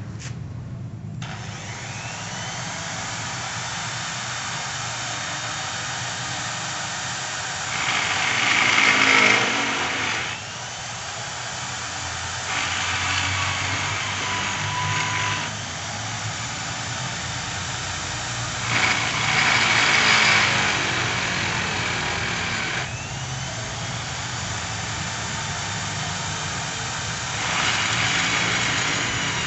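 Corded electric drill in a homemade lever-operated drill-press stand, switched on about a second in and running steadily. Four times the bit is pulled down into a sheet-metal workpiece, and the sound grows louder with a high cutting whine for a couple of seconds before easing back.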